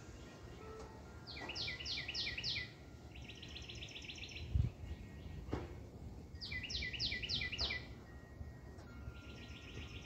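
A songbird singing a repeated phrase: a run of about five quick downslurred notes followed by a fast trill, heard twice, with the next phrase starting near the end. A soft thump about halfway through.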